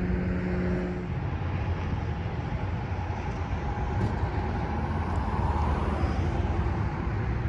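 Steady roar of freeway traffic, with a low pitched engine hum in the first second that stops about a second in.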